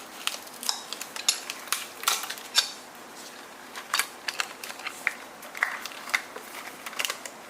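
Hands rummaging among the battery wiring and connectors in an electric scooter's open deck: irregular light clicks and clatter of hard plastic and metal parts.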